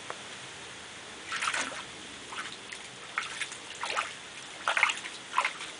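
Dog moving about and rooting in a shallow, muddy garden pond, the water sloshing and splashing in short, irregular bursts.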